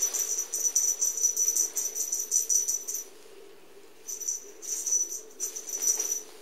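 Cat's claws raking and scrabbling at a sisal-rope scratching post during play, a fast scratchy rattling in two spells with a pause of about a second about three seconds in.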